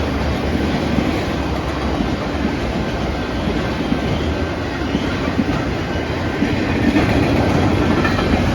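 Train cars rolling past close by: a steady, loud rumble of wheels on rail with occasional sharp clicks.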